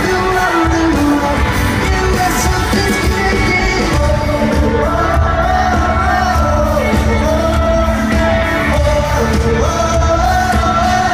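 Pop-rock band playing live with singing, loud and continuous.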